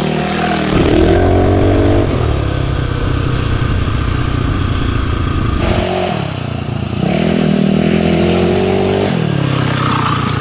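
Single-cylinder Tillotson 225 racing engine on a dirt bike revving up as the bike accelerates, then revving up again later and dropping back near the end.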